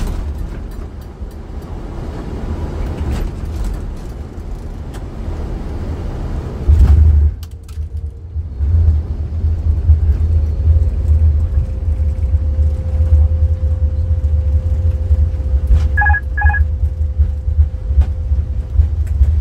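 Cockpit noise of an Airbus A330 rolling out after landing. A broad roar runs through the first several seconds, then a loud bump, then a deep steady rumble as the jet rolls down the runway. A faint steady tone and two short beeps come near the end.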